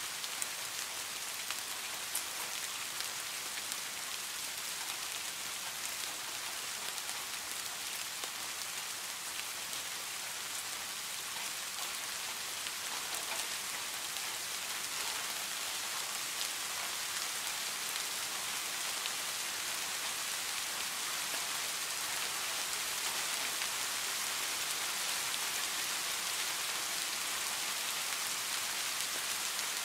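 Steady rain falling: a continuous hiss with a few sharper drop ticks near the start, getting a little louder in the second half.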